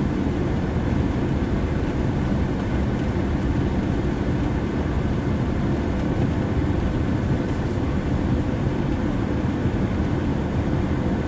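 Vehicle driving along a snow-covered trail, heard from inside the cab: a steady, even rumble of engine and tyres.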